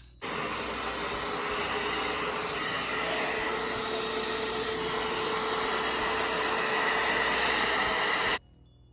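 Handheld blow dryer running steadily with a faint whine, drying wig glue spray. It switches on just after the start and cuts off suddenly near the end.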